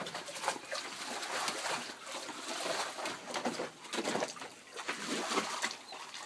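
Water splashing in a plastic kiddie pool as a dog paws at it, in a run of irregular splashes.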